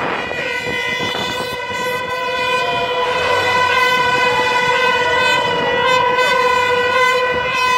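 A horn sounding one long, steady, unbroken note, with crowd voices faintly beneath it.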